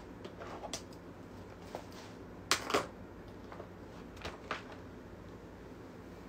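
Sheets of paper being handled, a few short rustles and taps, the loudest pair about two and a half seconds in, over a low steady room hum.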